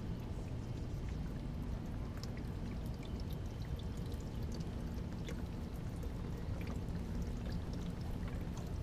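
Liquid pouring and trickling steadily out of a plastic milk jug just pierced by a broadhead-tipped arrow, with scattered small drips and ticks.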